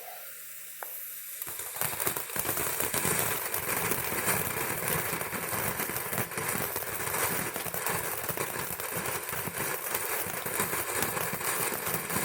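Phantom Fireworks Cosmic Pearls box fountain going off: dense, steady crackling and hissing of a spark shower that starts about a second and a half in.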